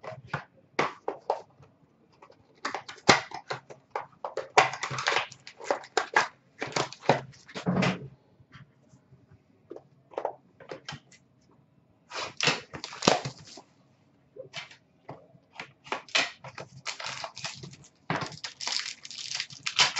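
Trading cards and cardboard card boxes being handled: short irregular bursts of rustling, scraping and crinkling, busiest in two stretches.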